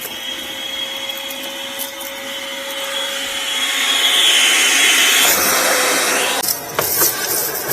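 Vacuum cleaner running, sucking debris out of the car's front compartment. A steady whine and rush grow louder toward the middle, dip in pitch about five seconds in, and cut off about six and a half seconds in, followed by a few knocks.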